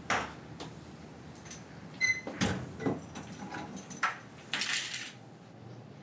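A front door being handled as someone comes in: a knock of the door at the start, then keys jangling and the lock or latch clicking, with brief metallic ringing, and a short rustle near the end.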